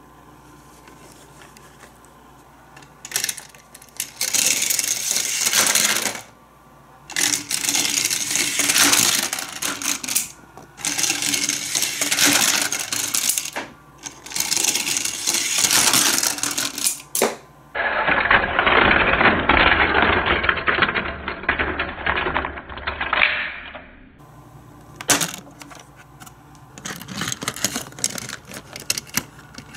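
Plastic toy-playset mechanisms and a die-cast toy vehicle clicking and rattling on plastic track, in four bursts of about two seconds each. These are followed by a duller, continuous rattle lasting about five seconds, then a few more short clicks near the end.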